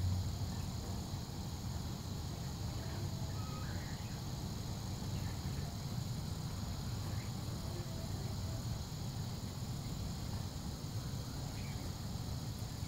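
Steady chorus of insects, an even high buzzing that does not change, over a low steady rumble, with a few faint short chirps.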